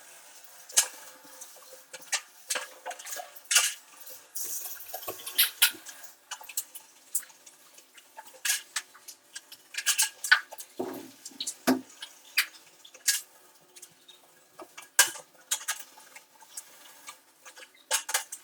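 Metal parts of an old hand-cranked grinder clinking and knocking as they are handled, in irregular sharp clicks, with a couple of heavier clanks partway through.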